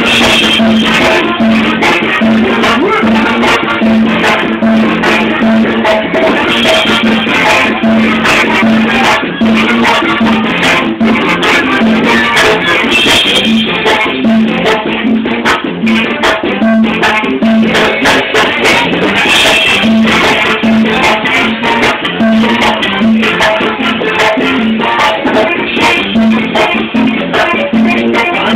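Live Mexican banda music played loud, with a steady pulsing bass line under the band.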